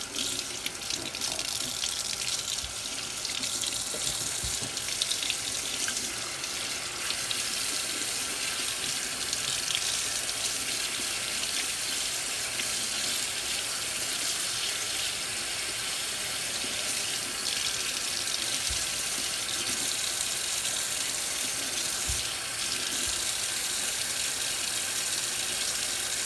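Water tap running steadily into a sink, left on while the water is still cold, to let it warm to room temperature.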